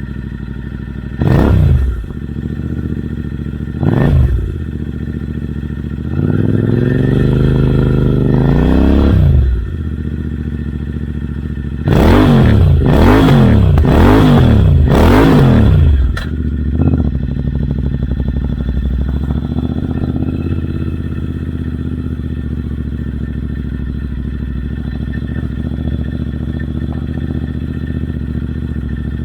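Royal Enfield Interceptor 650's parallel-twin engine through Red Rooster Performance aftermarket exhausts, idling and revved on the throttle while standing: two short blips, a longer rev that rises and falls, then four quick blips in a row, before it settles back to a steady idle.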